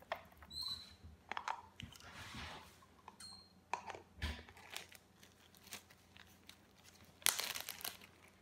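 Plastic being handled: a red plastic funnel and a plastic water bottle clicking, and zip-top plastic bags crinkling, in scattered short rustles, with a louder crinkle of a bag about seven seconds in.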